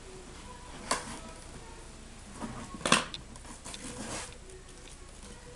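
A cardboard box being opened and its contents pulled out: a few short tearing and rustling noises, the loudest about three seconds in.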